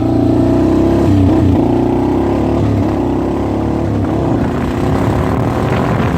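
Four-wheeler (ATV) engine running while riding, with a brief dip in engine pitch about a second and a half in.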